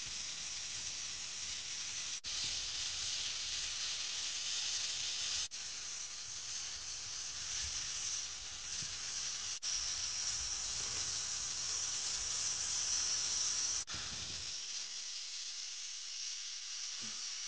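Meat frying in a pan: a steady sizzle, briefly broken about every three to four seconds.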